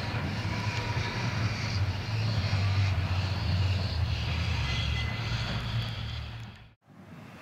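Vintage electric tram running along its street track, a steady low rumble. It cuts off abruptly near the end and a quieter outdoor background follows.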